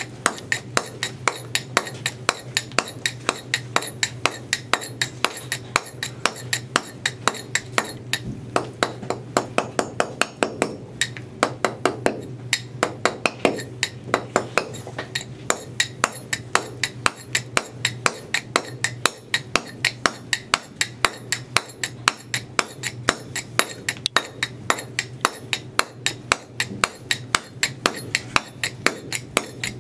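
Stonemason's steel boaster being struck with a mallet in a steady rhythm of about three blows a second, each a sharp metallic tap as the chisel dresses the chamfer face of the stone block.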